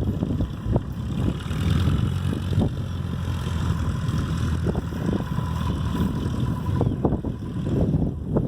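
Wind buffeting the microphone over the steady drone of a light aircraft's engine in flight, with a faint whine about two-thirds of the way through.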